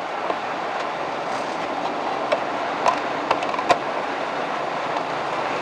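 Steady road and tyre noise of a four-wheel-drive vehicle driving on a cleared highway, heard from inside the cabin, with a few sharp clicks and ticks about two to four seconds in.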